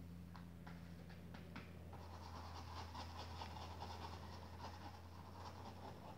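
Paintbrush with little white paint on it stroking over fabric: faint dry scratching, a few light ticks at first, then quick continuous brushing from about two seconds in.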